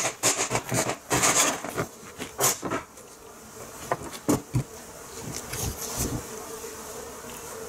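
Honeybees buzzing, with a faint steady hum, under knocks and scrapes from a wooden frame of honeycomb being handled on a steel table. The knocks cluster in the first few seconds, with a few more later.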